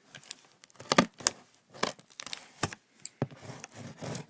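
A shipping package being cut and torn open by hand: an irregular run of sharp tearing and scraping strokes of packaging material, with crinkling in between.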